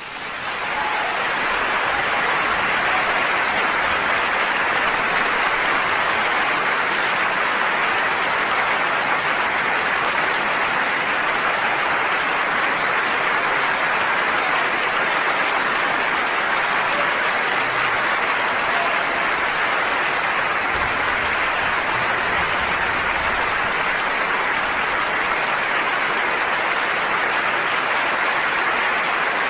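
A large audience applauding. The clapping swells over the first couple of seconds, then holds steady and even.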